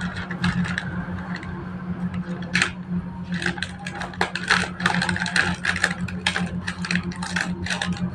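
Scissors cutting open a crinkly plastic snack packet: a run of short snips and crackles, busiest from about three seconds in, over a steady low hum.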